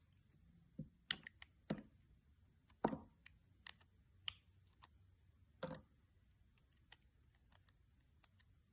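Irregular light clicks and taps of small objects being handled, a handful of louder knocks among fainter ticks.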